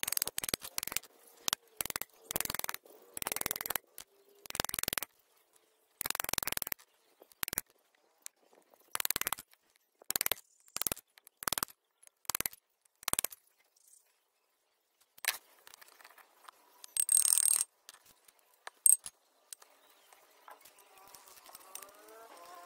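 A rag scrubbing a removed front wheel hub in a string of short, irregular strokes, about half a second each. They stop about two-thirds of the way through, followed by a longer scrape and a single sharp metal clink.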